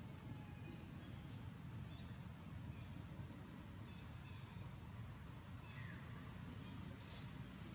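Faint outdoor ambience: a steady low rumble with a few faint short chirps, one rising chirp about six seconds in, and a brief hiss shortly after.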